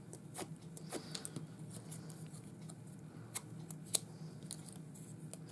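Bone folder drawn over small pieces of thick white card to break down the fibres so they curl, making faint scrapes and light papery ticks, the sharpest about four seconds in.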